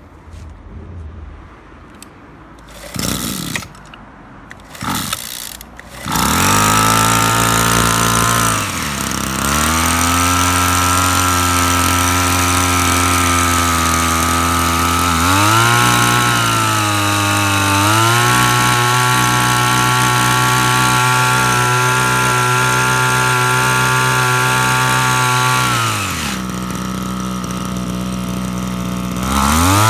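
Kioritz SHPE701 backpack power sprayer's small two-stroke engine pull-started: two short pulls on the recoil starter, and it catches about six seconds in. It runs fast, then drops to idle for several seconds. It is revved up again and held at a steady high speed as the pump sprays, drops back to idle near the end, and revs up once more.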